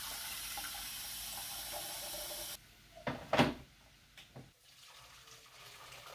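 Tap water running into an electric kettle, stopping abruptly about two and a half seconds in. Then two loud knocks as the kettle is handled, followed by a few lighter clicks.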